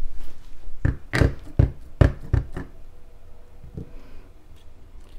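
A clear acrylic stamp block knocked about six times in quick succession. One softer knock follows near four seconds as the stamp is pressed down onto cardstock.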